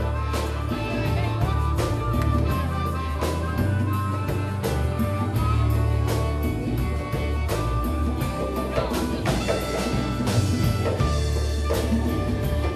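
Live blues band playing an instrumental passage: a driving bass line and drum kit under held lead notes.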